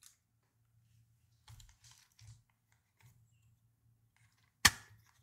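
Small components being handled in a clear plastic storage case: faint rustling and light clicks, then one sharp plastic click near the end, the loudest sound.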